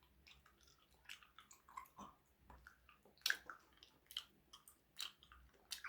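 Faint close-up chewing of a sticky Coke-flavoured candy, heard as scattered small wet clicks and smacks of the mouth, with the loudest about three seconds in.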